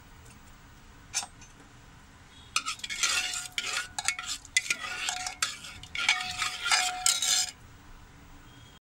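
A metal spoon stirs thick dal in a metal pressure cooker, scraping and clinking against the pot's sides for about five seconds, with a light ring at some knocks. A single knock comes about a second in.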